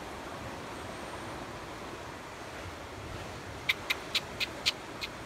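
Marmoset giving a quick series of short, sharp, high chirps, about four a second, starting near the end, over a steady background hiss.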